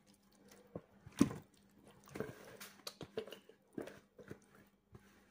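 Marinated chicken pieces, sliced onions and potatoes sliding and dropping out of a plastic bowl into a roasting tray: an irregular run of soft wet squelches and thuds, the sharpest a little over a second in.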